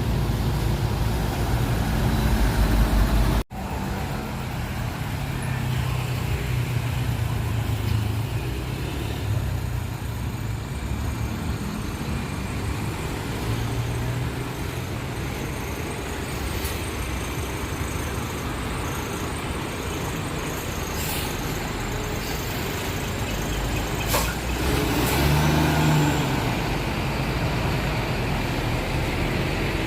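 Road traffic: cars, buses and trucks passing with engines running, with a brief drop-out about three and a half seconds in and a heavier engine louder about 25 seconds in.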